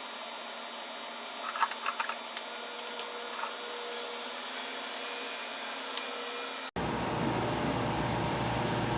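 Scattered light clicks and knocks over a steady hiss, from plastic fan parts being handled and fitted. It breaks off abruptly into a steady low hum.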